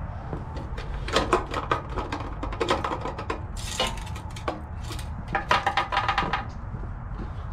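Short clicks and rattles of hand handling, as the fuel cap is unscrewed from the Predator 212cc engine's tank, then shuffling footsteps on concrete, over a steady low rumble. The engine is not running.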